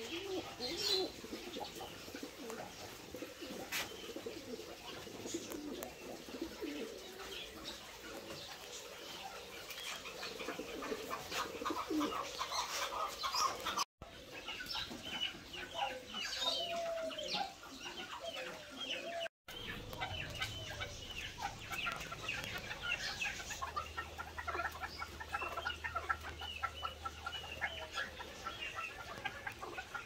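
Many caged birds calling together: pigeons cooing low at first, then dense high chirping and whistling from cockatiels, with some clucking. The sound breaks off briefly twice.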